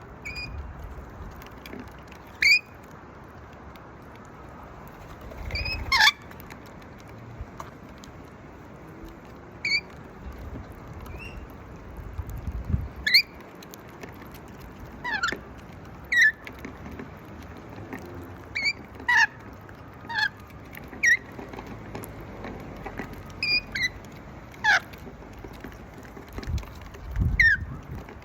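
Budgerigars giving short, sharp chirps, scattered every second or two, some dropping in pitch, over a steady background hiss with a few low rumbles.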